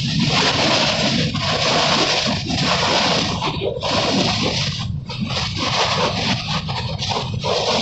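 Train in motion heard from on board: a loud, steady rushing noise with brief dips.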